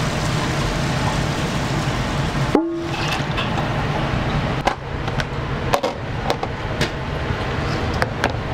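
Steady roar of a commercial gas wok burner, with sharp metal clanks of a ladle striking the wok from about three seconds in. A brief break with a short tone comes just before the clanks start.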